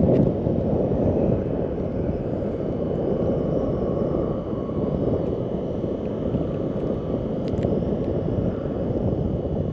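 Wind buffeting the microphone: a steady, choppy low rumble, with a faint click or two near the end.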